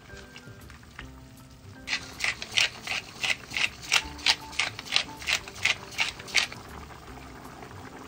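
Pepper mill grinding black peppercorns, about fourteen quick twists at a steady rate of roughly three a second, starting about two seconds in.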